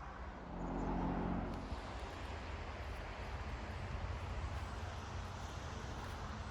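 Road traffic from a nearby street: a steady low rumble, with one vehicle passing and swelling louder about a second in.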